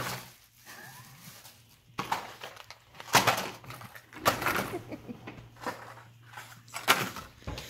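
Plastic shopping bag crinkling and packaged fishing lures being handled and set down on a tabletop, in several short bursts of rustling and clatter.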